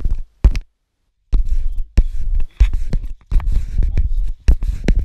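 Loud, uneven rustling and bumping close to the microphone, with sharp clicks and a short dead gap about a second in.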